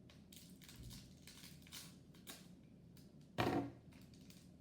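Plastic toy packaging crinkling and tearing as it is opened by hand, in short irregular rustles, with one louder, sharper burst about three and a half seconds in.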